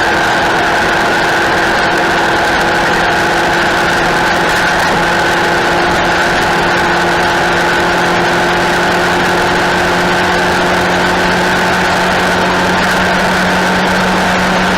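Motorcycle engine running at steady revs: a loud, unbroken drone that holds the same pitch throughout.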